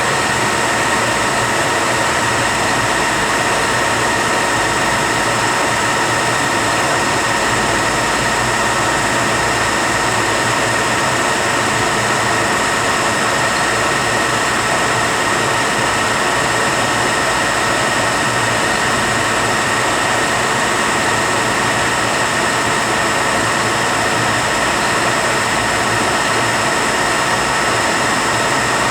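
Rebuilt Eaton Fuller RTO-14609B truck transmission spinning on a test dyno: a steady, loud mechanical whir with constant high-pitched whine tones over it.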